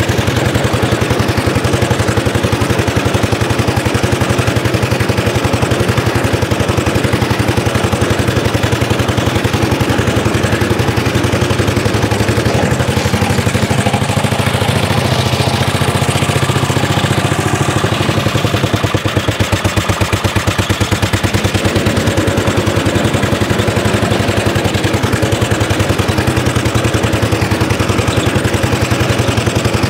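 Vintage 1930s Dennis Z-type 30-inch petrol lawn mower running under way, its engine firing in a fast, even beat with the cutting cylinder engaged and the drive in gear. The beat dips a little about two-thirds of the way through.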